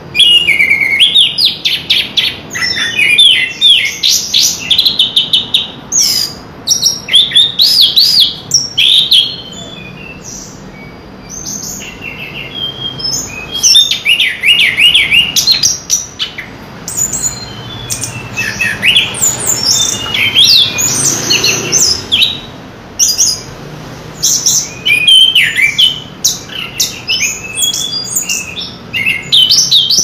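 Chestnut-capped thrush singing loudly in bursts of rapid, varied high whistled phrases that sweep up and down, with a pause of a few seconds about a third of the way through and a shorter one later on.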